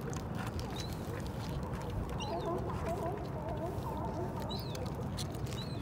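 Birds calling: a few short high chirps, and a run of lower wavering calls about two seconds in, over a steady low background rumble.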